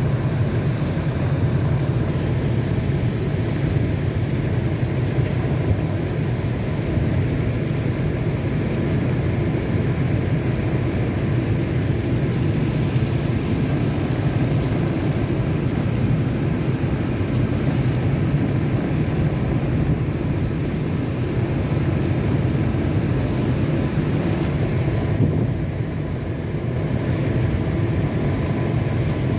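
Steady low engine drone of a moving vessel, with a faint high whine above it.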